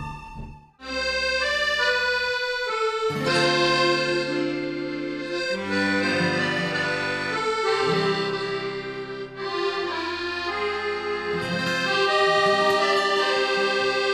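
Instrumental background music, a melodic tune of held notes. It starts just under a second in, after a short break.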